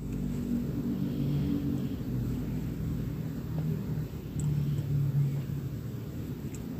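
A motor vehicle's engine running close by: a low, uneven rumble, loudest around the middle and easing toward the end.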